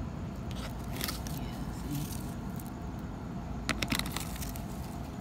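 A gloved hand stirring moist worm compost in a plastic vermicomposting tray, giving a few short crunching scrapes, over a steady low rumble of city traffic.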